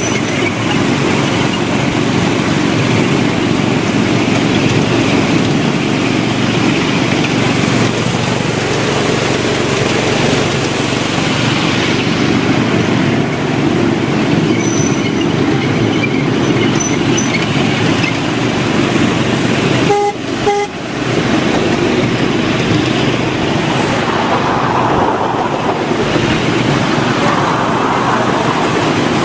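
Ride-on miniature railway train running along the track with a steady rumble, and two short horn toots about twenty seconds in.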